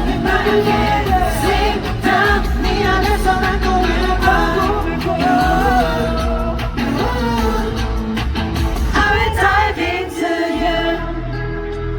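Boy group singing a pop song live over its backing track through concert speakers; the music thins out near the end.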